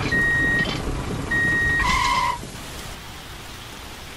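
A vehicle reversing beeper: steady electronic beeps about half a second long, repeating roughly once a second, over a low engine-like rumble, with a brief two-tone beep about two seconds in. After that only a softer steady hiss remains.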